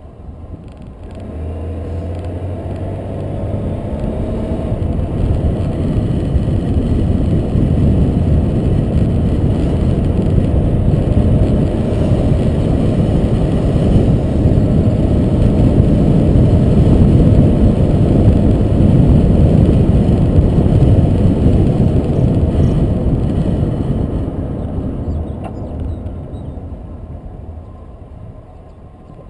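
Car pulling away and driving along a road: engine and rushing road and wind noise build as it gathers speed, with the engine's pitch climbing in the first few seconds, then ease off as it slows near the end.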